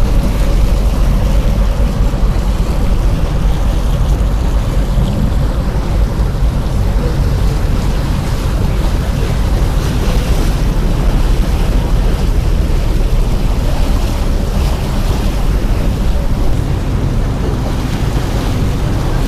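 Steady wind rumble on the microphone aboard a moving boat, with water rushing along the hull.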